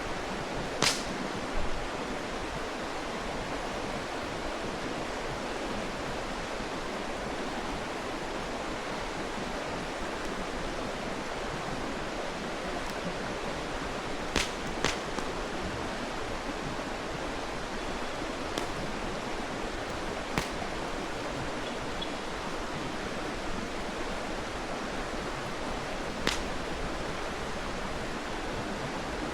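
Mountain stream running steadily, with a campfire's burning wood giving about seven sharp pops scattered through it.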